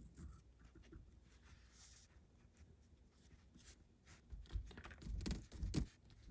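Light tapping and scratching of a foam cosmetic wedge sponge dabbing paint onto a small 3D printed model part, with louder dull knocks from handling from about four seconds in.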